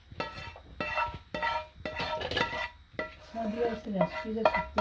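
Serving spoon clinking and scraping against the pot and serving dish as curry is ladled out: a series of short, ringing clinks.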